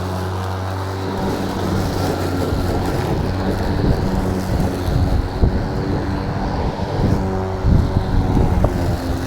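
EGO battery-powered lawn mower running, its motor giving a steady hum, with uneven low rumbling from about a second in.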